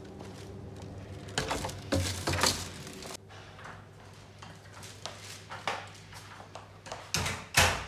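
A wooden door being unlatched and swung open, then footsteps and the rustle of a plastic carrier bag, with a couple of louder knocks near the end.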